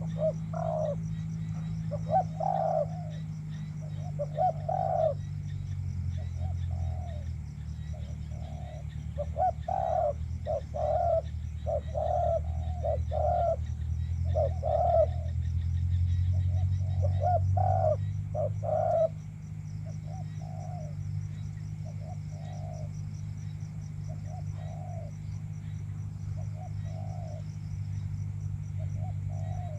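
Spotted doves cooing in repeated short phrases, the calls of a loudspeaker dove lure and the wild doves it draws; the cooing is busiest and loudest between about 9 and 19 seconds in. A steady low hum runs underneath.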